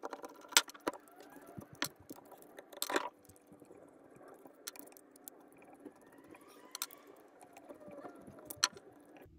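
Metal shifter parts clicking and clinking as they are handled and fitted together by hand, with sharp clicks a second or two apart.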